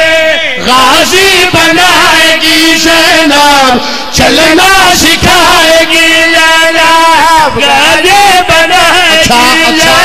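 A man chanting a devotional qasida into a microphone, in a loud melodic line with long held notes that waver and glide in pitch. There is a short break about four seconds in.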